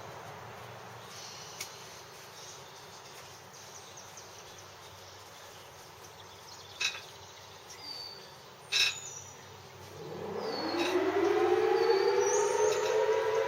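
Federal Signal Thunderbolt 1000T outdoor warning siren starting up about two-thirds of the way in. Its low pitch rises quickly and then levels into a steady tone, the Alert signal of a routine siren test. Before it there are two sharp clicks, and birds chirp briefly.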